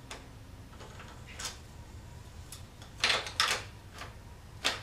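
Small 3D-printed PLA puzzle-box pieces clicking and scraping as they are handled and fitted together, with a few faint clicks and then a louder cluster of clicks about three seconds in.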